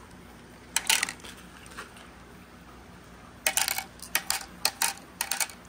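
Glass marbles clicking together in a hand and dropping into a funnel-shaped cup, clinking as they land: a couple of sharp clicks about a second in, then a quick run of clicks between about three and a half and five seconds.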